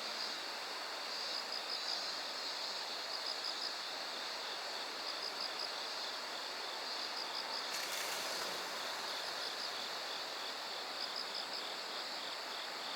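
Outdoor ambience: a steady hiss with short trains of high chirping pulses that repeat every second or two, typical of insects. A brief noisy burst comes about eight seconds in.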